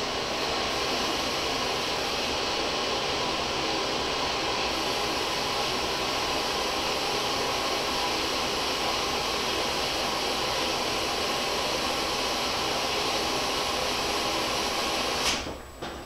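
Front-loading washing machine mid-wash: a steady rushing hiss of water flowing into the machine as it tops up, starting abruptly and cutting off suddenly near the end.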